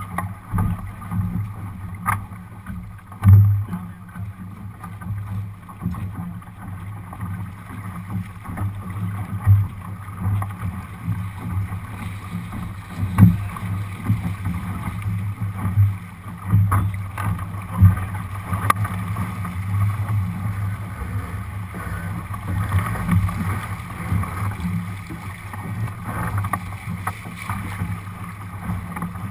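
Lightning-class sailboat beating upwind through chop: water rushing and slapping along the hull, with wind on the microphone and a few sharp knocks from waves hitting the hull.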